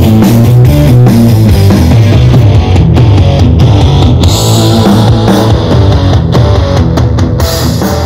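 Rock track with drums and electric guitar, heavy in the bass, played loud through a soundcore Boom 2 portable Bluetooth speaker as a sound test.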